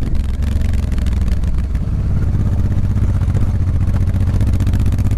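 Motorcycle engine running steadily while riding, heard from a camera mounted on the bike.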